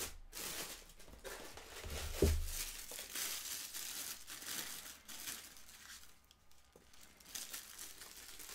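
Packaging crinkling and rustling as a boxed statue's accessory pieces are unwrapped, with a dull thump about two seconds in.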